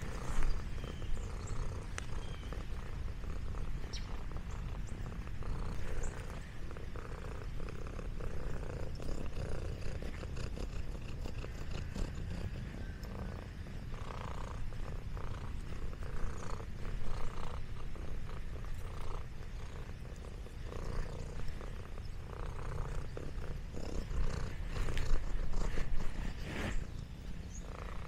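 Orange tabby cat purring steadily close to the microphone, a continuous low rumble, with scattered light rustles and clicks over it.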